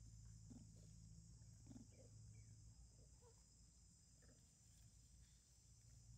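Near silence: a faint steady high insect drone, with a few faint soft ticks and rustles scattered through.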